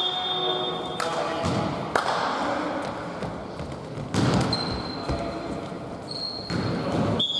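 Basketball bouncing on a hardwood gym floor a few times at uneven intervals, in a reverberant hall, with players' voices and a few short high squeaks or whistle tones.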